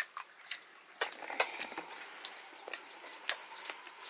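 Birds chirping, many short high chirps one after another, among scattered light clicks and knocks.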